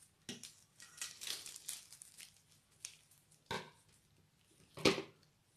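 Plastic piping bag crinkling and rustling as it is handled, in a string of short irregular crackles, with a sharper crackle a few seconds in and the loudest one near the end.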